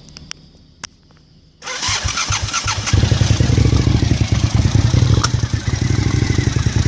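A few light clicks, then an engine with a throttle body is cranked by its starter about a second and a half in and catches about a second later. It then runs loud and uneven with the canister and vacuum lines hooked up: it sounds horrible and runs all over the place.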